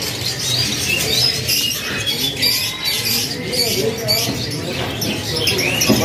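A cage full of Loper-series domestic canaries giving scattered short chirps, over a low murmur of voices.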